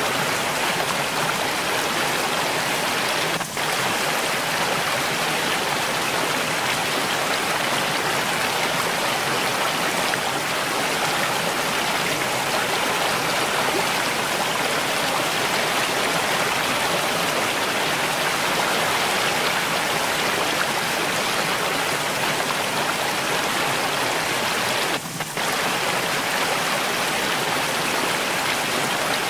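Mountain stream flowing steadily, an even, dense rush of water with no let-up, broken only by two momentary dips in level, a few seconds in and again late on.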